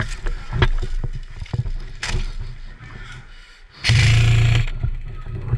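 Handling noise on a body-worn camera as the player shifts behind cover: scattered clicks and knocks, then a loud rushing burst lasting under a second about four seconds in.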